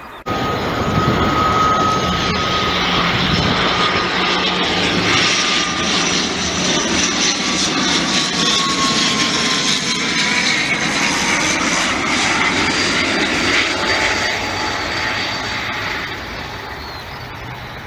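Engines and propellers of an ATR 72-500 twin turboprop on landing approach: a loud, steady drone with a whine that slowly falls in pitch as the aircraft passes. It fades over the last couple of seconds.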